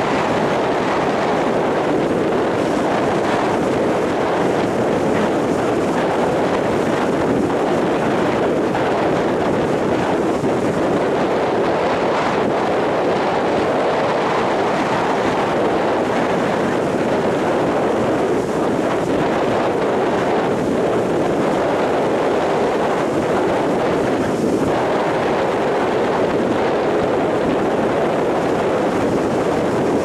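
Rough storm surf breaking and washing up a sandy beach in strong wind: a steady, dense rush of breaking waves and wind.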